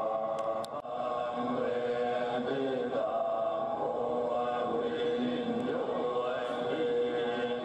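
Buddhist chanting by a group of male voices, several held tones sounding together without a break.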